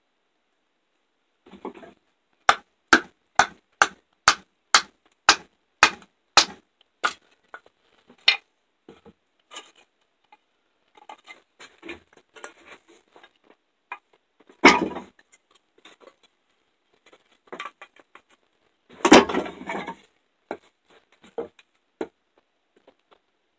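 A fixed-blade knife striking a strip of wood: a run of about a dozen sharp wooden knocks, about two a second. Then faint taps, a louder knock with a short clatter about midway, and a longer rough clatter near the end.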